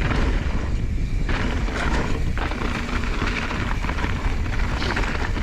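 Mountain bike descending a dirt and rock trail: steady rumble of the tyres over the ground with frequent rattles and knocks from the bike, and heavy wind buffeting on the camera's microphone.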